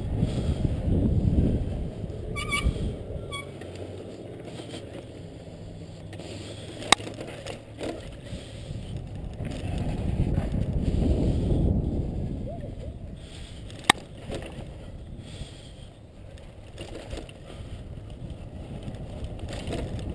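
Wind rushing on the microphone of a moving bicycle ride, with the low rumble of the ride swelling near the start and again about halfway through. A few brief high chirps come about two and a half seconds in, and two single sharp clicks come about seven and fourteen seconds in.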